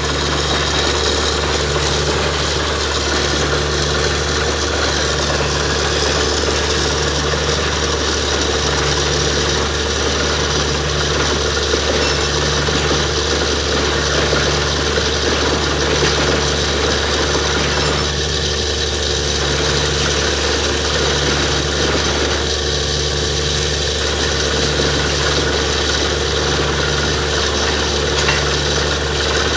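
A borewell drilling rig runs steadily, with a low throb pulsing about every second and a half. Over it comes a loud, even rushing of compressed air and water blowing out of the newly drilled borehole.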